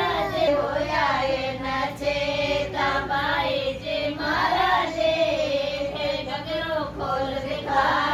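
A group of women singing a traditional song together, their high voices carrying on through the phrases without any drum beat.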